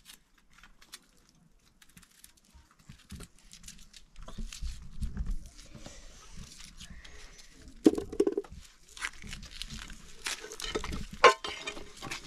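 Boiled eggs being cracked and peeled by hand: shells crackling and crinkling, with scattered clicks and taps of shell against metal pots and a plastic bowl. A short call is heard about eight seconds in.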